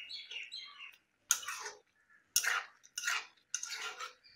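A spatula scraping and stirring a thick vegetable curry in a metal kadai: faint clinks, then four separate scraping strokes starting about a second in. The curry is being cooked down to dry off its water.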